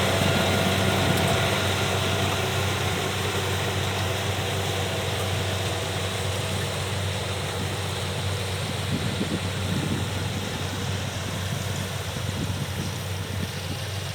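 Kubota DC70 rice combine harvester running, its diesel engine giving a steady low hum under the broad clatter of the machine, slowly getting quieter.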